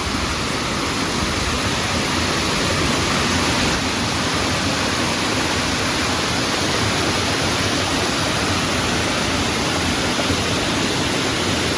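Small waterfall and fast stream water running in a steady, even rush.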